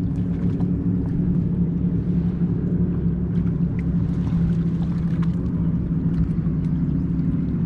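A boat's engine running steadily, a low even hum with a fixed pitch that holds throughout.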